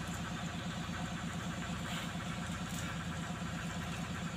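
A steady low mechanical hum with a fast, even pulse, like an engine or motor running at idle.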